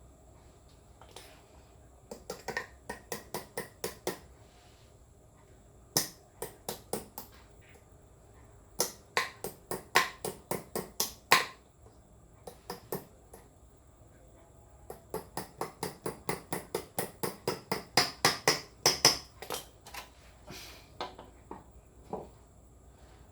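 Runs of sharp, evenly spaced clicks, about four or five a second, in several bursts with short pauses between; the longest run, near the end, holds some twenty clicks.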